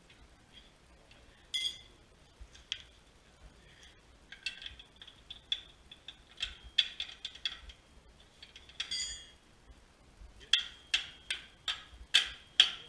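Hand tools working on metal suspension parts while a control arm is fitted: scattered ringing metallic clicks and clinks, then a run of about six sharp metal strikes, roughly two a second, near the end.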